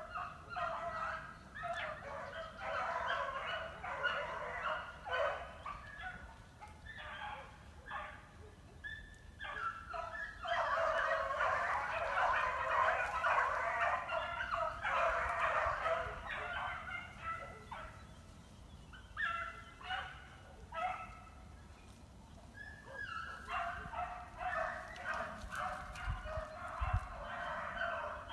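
A pack of beagles baying in many overlapping voices. It comes in broken spells of calls, swelling into a continuous chorus in the middle and again near the end.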